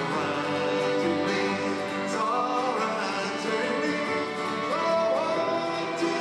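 Live folk song: a man sings over a strummed steel-string acoustic guitar, with violins and a cello playing along.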